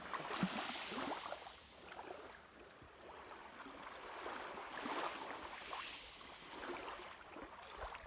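Calm sea water lapping and washing in the shallows, with small splashes, swelling about a second in and again around five seconds.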